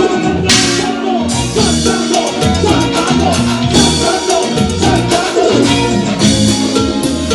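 A Latin dance band playing live, loud, with drum kit and percussion keeping a steady beat under a wavering melody line; a cymbal crash about half a second in.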